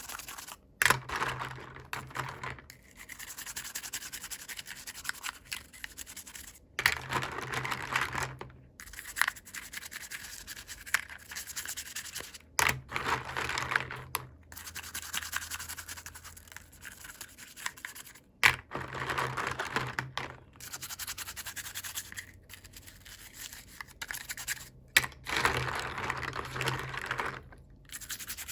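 Hands handling packaging, making scratchy rustling and rubbing in bursts of a second or two every few seconds, with occasional sharp clicks between them.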